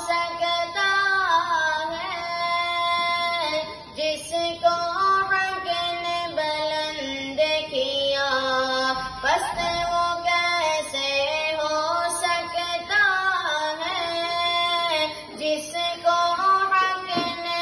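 A boy singing an Urdu naat solo into a handheld microphone, without instruments, in long ornamented phrases that bend up and down in pitch, with short breaks for breath.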